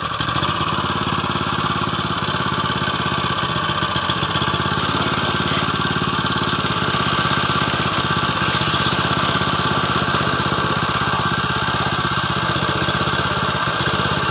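Powered paddle mixer running steadily, its blade churning a foamy foliar spray solution in a plastic drum. It starts up sharply right at the beginning and holds an even pitch throughout.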